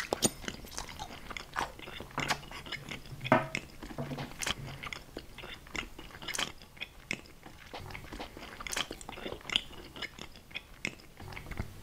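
A person chewing a big mouthful up close, ASMR mukbang-style: a dense, irregular run of sharp crunchy clicks and wet mouth noises that starts abruptly.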